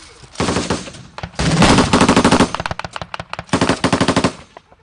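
Automatic gunfire in three rapid bursts. A short burst comes near the start, a longer, louder one about a second and a half in, and a third shortly before the end.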